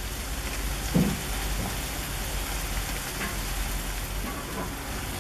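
Onion and seafood frying in a pan, a steady sizzle, with a brief low thump about a second in.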